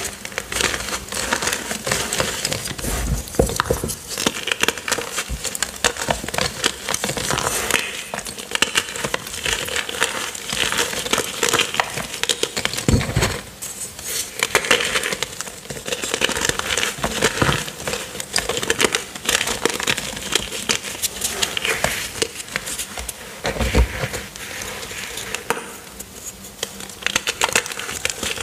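Hands crushing and crumbling chunks of purple gym chalk topped with cornstarch: a steady run of dry crunching and crackling, with a few dull thuds as pieces break apart.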